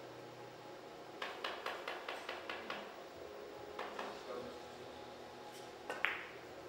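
A quick run of light clicks and clinks of hard objects being handled, a few more a moment later, then one sharper clink with a short ring near the end.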